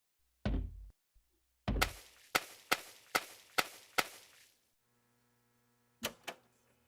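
A run of sharp knocks: two duller thumps, then five crisp strikes about 0.4 s apart, each ringing out briefly. A faint steady hum follows, then two more quick knocks near the end.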